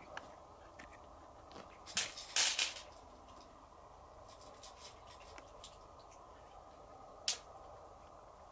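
Short scratchy clicks, a cluster about two seconds in and one sharp click near the end, over a steady room hum.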